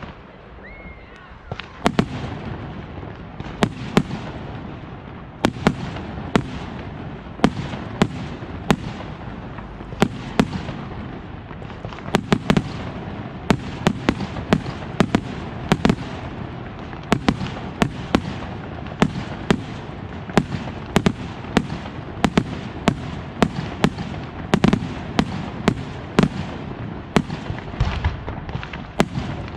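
Fireworks display: a rapid run of sharp bangs from aerial shells, about one to two a second, over a continuous rumble, starting about two seconds in and keeping up steadily.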